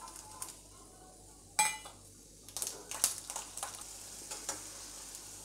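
Unpeeled garlic cloves sizzling in hot oil for deep-frying, a steady hiss with scattered crackles that pick up about halfway through. A brief ringing clink about one and a half seconds in.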